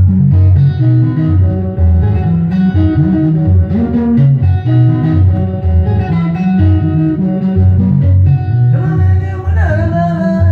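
Sungura band playing live: interlocking plucked electric guitar lines over a steady, heavy bass guitar line. A voice comes in near the end.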